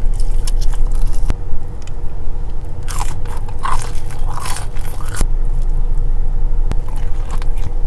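Close-miked biting and chewing of a crispy fried chicken finger, with wet mouth clicks and a run of loud crunches about three to five seconds in, over a steady low hum.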